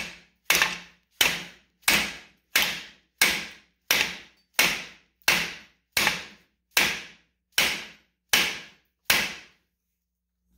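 Hammer blows on a steel socket seated against a wheel bearing race in the hub, driving the race out. About fourteen evenly spaced strikes, roughly one and a half a second, each ringing briefly, stopping about nine seconds in.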